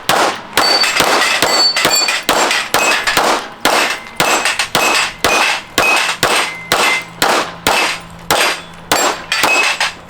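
Rapid semi-automatic pistol fire at steel targets: a string of about two dozen shots, two to three a second, each hit ringing the steel plates with a short metallic clang. The string stops just before the end.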